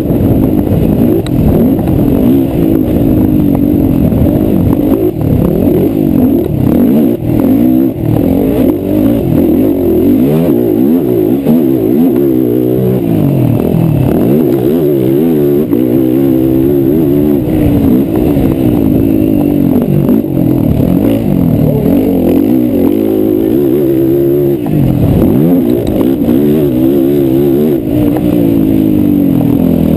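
Race quad engines revving hard, the pitch rising and falling constantly with throttle and gear changes, more than one engine overlapping.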